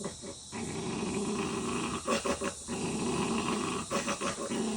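A puppy growling long and rough at its own reflection, taking it for another dog, with short breaks about two seconds in and again near four seconds.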